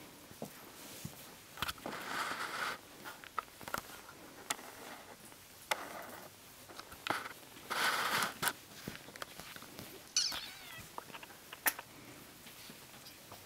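Black kitten making small sounds as a hand plays with it: two breathy, hissy bursts of about a second each, a short falling squeak about ten seconds in, and scattered scuffs and clicks of the handling on the blanket.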